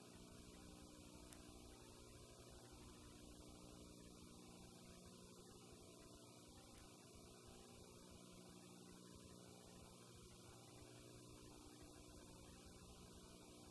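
Near silence: a faint steady electrical hum under a light hiss.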